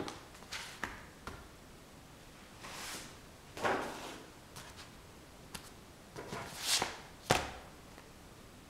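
Scattered soft swishes and light taps at irregular intervals, the sharpest a tap about seven seconds in.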